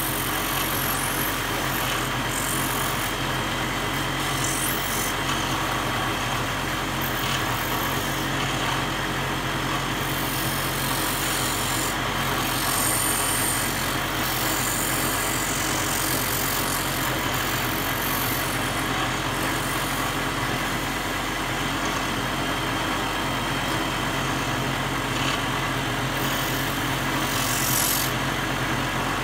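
Electric motor of a belt-driven lapidary grinding machine running steadily with a low hum, while an opal held against its wet spinning wheel gives a high grinding hiss that comes and goes as the stone is pressed on and eased off.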